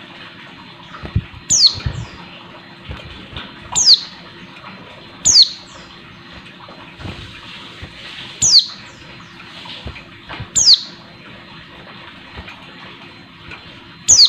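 Female white-eye (pleci) giving short, high calls that each sweep sharply downward, about six at uneven gaps, the call of a female in breeding condition calling to a male. Soft thumps and wing flutters come between the calls as the bird hops about its cage.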